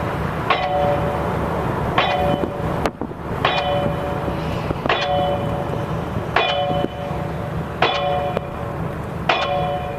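Pile driver hammering a pile for a railroad bridge: a ringing metallic clang about every one and a half seconds, seven blows in all, over a steady low rumble.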